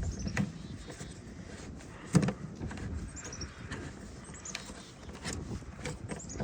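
Metal clicks and knocks as a rivet nut tool is worked at a licence-plate mount, with a sharp knock about two seconds in and fainter handling noise around it.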